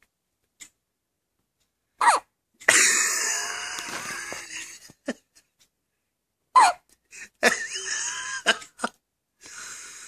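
Baby hiccuping: two sharp, squeaky hiccups about four and a half seconds apart, each followed within a second by a longer noisy sound that fades out.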